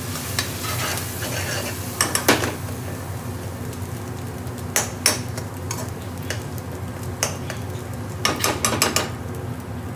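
Metal spoon stirring onions frying in oil in an aluminium pan, scraping and knocking against the pan now and then, with the most knocks in a cluster near the end. A steady sizzle runs underneath.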